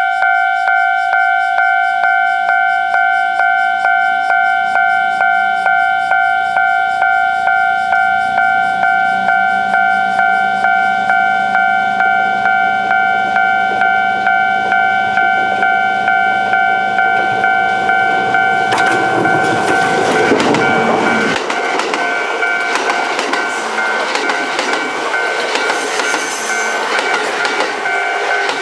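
Japanese level-crossing warning bell ringing in a fast, steady repeating ding. A low rumble grows from about eight seconds in as a Kintetsu 21000 series Urban Liner Plus express approaches, and from about nineteen seconds in the train passes through the crossing with loud wheel-on-rail noise over the bell.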